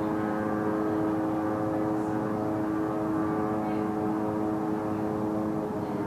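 Loud, steady, horn-like hum from the sky, a drone of several tones held at once without a break.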